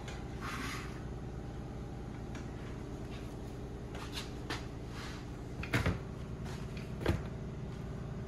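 Steamed squash pieces being tipped from a pressure cooker's strainer basket into a plastic mixing bowl: soft clatter and small clicks, with two sharper knocks of the basket against the pot or bowl near the end. A steady low hum runs underneath.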